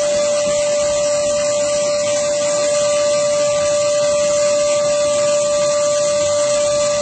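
Wet/dry shop vacuum running steadily: a constant motor whine over a strong airy hiss.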